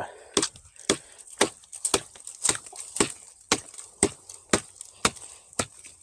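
SwissTech hatchet chopping through a branch about 2.5 inches thick: a steady run of sharp blows, about two a second.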